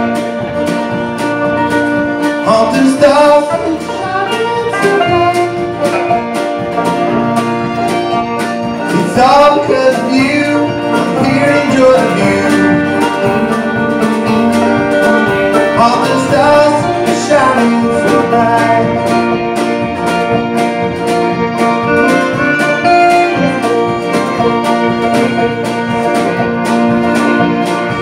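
Live string band playing a bluegrass-style tune with a steady beat: banjo, acoustic guitars, fiddle, upright bass and drums.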